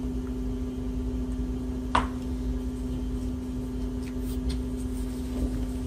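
Steady machine hum with a low rumble, and one short sharp click about two seconds in.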